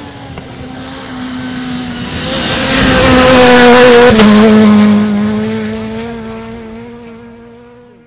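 A rally car passing at speed on a gravel stage: its engine is held at high, steady revs with a rushing noise from the tyres on loose gravel. The sound builds to its loudest about halfway through, drops slightly in pitch as the car goes by, then fades away.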